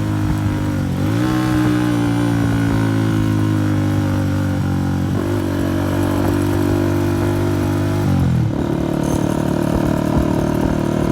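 Honda CG 125's single-cylinder engine running very loud through a burst silencer while riding, its pitch dipping and climbing back about a second in and dropping again around eight seconds.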